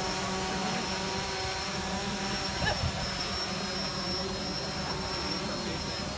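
DJI Phantom 4 quadcopter drone hovering, its propellers giving a steady whine of several tones, one of them high-pitched. A short sharp sound comes about halfway through.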